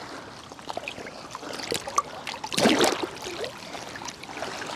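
Lake water lapping and trickling around a man wading waist-deep with a large carp held in the water, with small drips and one louder splash a little over halfway through.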